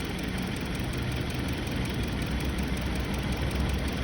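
Hyundai Sonata engine idling steadily with a low rumble while misfiring on cylinder 4, a misfire the mechanic traces to a fuel injector that does not close.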